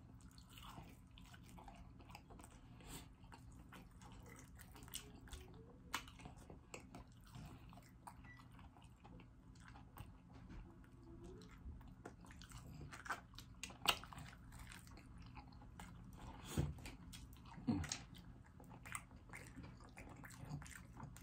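Close-miked chewing and mouth sounds of a person eating pancake-battered fried chicken. There are scattered soft crunches and wet smacks, with a few sharper ones in the second half, over a faint steady hum.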